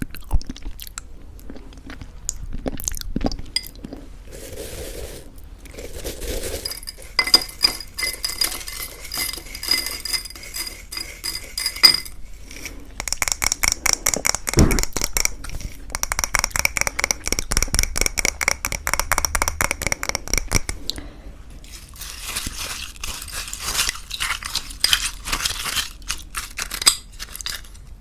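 A spoon scraping and clinking against a bowl while scooping thick yogurt and granola, in several long runs of rapid scraping strokes with a faint ringing. Crunchy granola is bitten and chewed between the runs.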